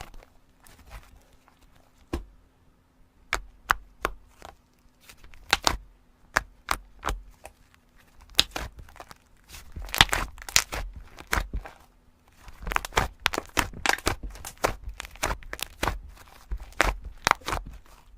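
Slime being squeezed and poked by hand, giving irregular sharp clicks and pops, sparse at first and then coming thick and fast through the second half.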